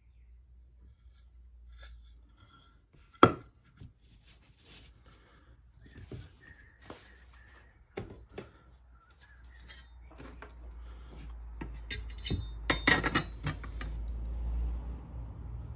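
An oak board and a steel combination square being handled and set down on a workbench: scattered knocks, taps and rubbing. One sharp knock comes about three seconds in, and a quick run of clicks and scrapes near the end as the square is laid against the board.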